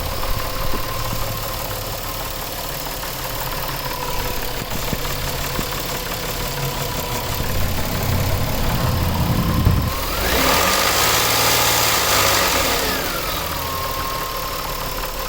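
Warmed-up 2000 Nissan Maxima V6 idling with a grinding knock, which the owner thinks might be the timing chain but is not sure. About ten seconds in it is revved once: it gets louder for a few seconds, then the whine glides back down to idle.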